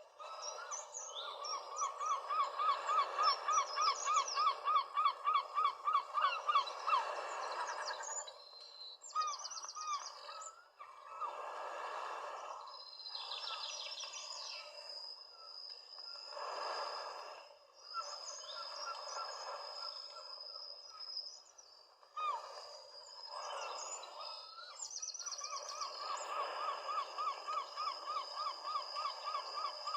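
Outdoor ambience of several birds calling and singing, with a fast run of repeated chirping notes, about four a second, for roughly the first seven seconds, over a steady background hiss. A thin steady high tone runs through the second half.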